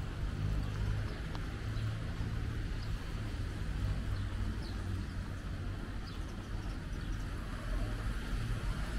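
Steady low rumble of street traffic, with a few faint, short bird chirps.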